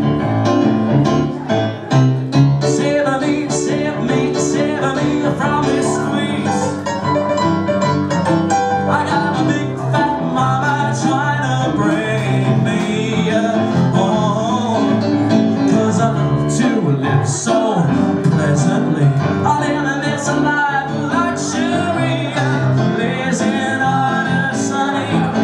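A man singing live with his own digital piano accompaniment: a sung melody over chords, with a steady beat of sharp ticks running through it.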